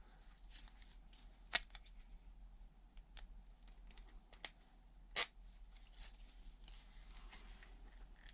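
A multitool's knife blade cutting through a plastic zip tie: faint scraping and handling noise broken by three sharp clicks.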